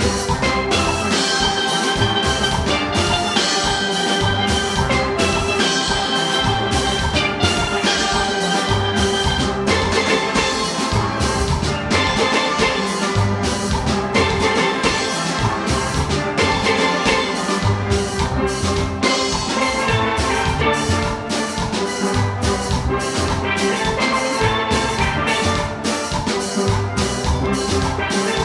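Steel orchestra playing: many steelpans ringing out melody and chords over a steady drum-kit beat.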